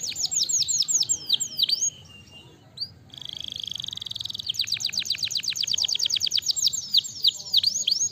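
White domestic canary singing: fast trills of rapid downward-sweeping notes, a brief pause about two seconds in, then a buzzing roll and another fast run of sweeping notes that slows toward the end.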